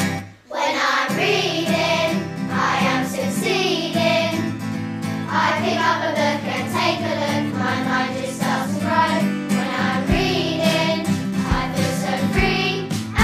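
A children's song with singing over a backing track. It starts after a brief drop in sound about half a second in.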